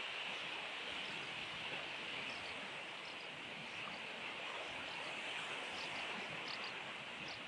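Steady wash of surf along the shore, with faint short high chirps from the sand martin colony scattered through it.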